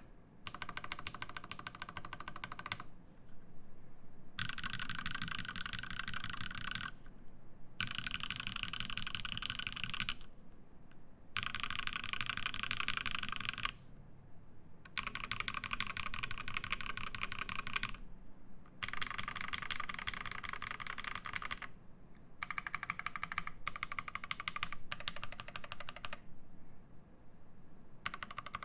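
Typing test on a Satisfaction75 R2 mechanical keyboard with Krytox-lubed Lavender switches, FR4 plate and GMK keycaps: rapid keystrokes in runs of about two to three seconds, separated by short pauses. Shorter, choppier bursts come near the end.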